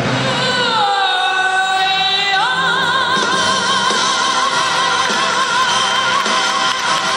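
Music with a high sung note: the voice slides down, then leaps up about two and a half seconds in and holds the new note with a wide vibrato.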